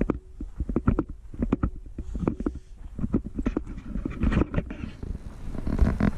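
Footsteps on a dirt and gravel path, a series of short irregular crunching thuds about two to three a second, over a constant low rumble on the microphone.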